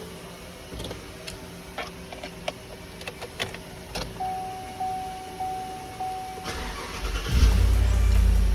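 Scattered clicks and a repeating electronic chime, then the GMC Yukon's engine cranks and catches near the end and keeps running, much louder.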